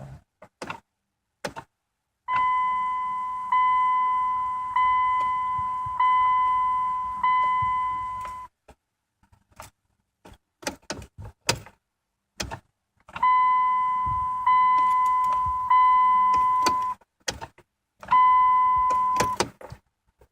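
Dodge Journey dashboard warning chime dinging over and over, about one ding every 1.2 seconds, in two runs with a pause between them. Sharp clicks come in the gaps, and no engine cranking is heard as the key is turned on the car that won't start.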